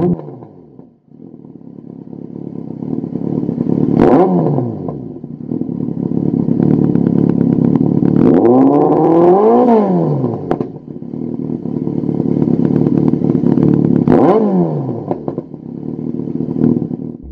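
Yamaha XJR1300's inline-four engine breathing through a Lextek MP4 aftermarket silencer, idling with throttle blips. There is a short blip about four seconds in, a longer rev that rises and falls around the middle, and another short blip near the end.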